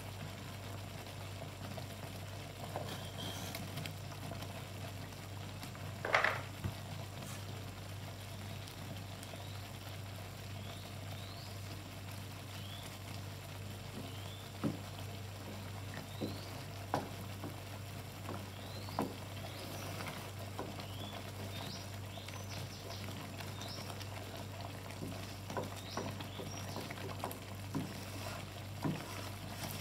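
Thick cheese sauce simmering in a frying pan, with small bubbles popping now and then while a wooden spatula stirs it. There is one louder knock about six seconds in, and a steady low hum underneath.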